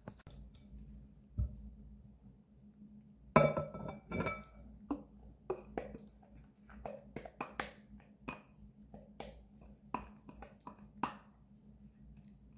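Glass clinking on glass, with a short ringing knock about three seconds in as the glass measuring cup meets the glass mixing bowl. Then a run of sharp taps and knocks from a silicone spatula working whipped egg whites out of the glass cup.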